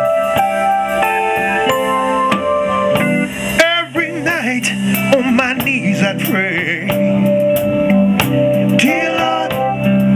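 Live soul band playing a slow ballad: sustained keyboard chords, then about three and a half seconds in a wavering, bending lead line with vibrato comes in over the band.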